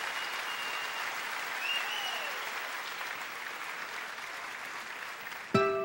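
Live concert audience applauding, with a few cheers, as a performer is welcomed to the stage. Plucked music notes begin just before the end.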